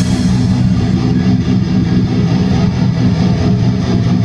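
Death metal band playing live: loud, heavily distorted guitars and bass holding a steady low, dense wall of sound.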